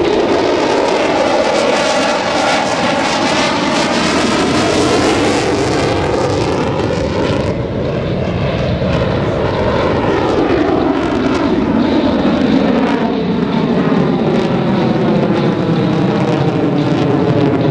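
F-16CJ Fighting Falcon's single jet engine as the fighter manoeuvres overhead: a loud, steady rush of jet noise whose tone sweeps up and down as the aircraft passes and turns.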